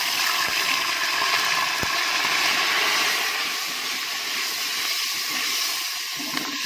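Ginger-garlic paste sizzling in hot oil with browned cumin: a loud, steady hiss of spitting oil and steam, easing a little after about three seconds.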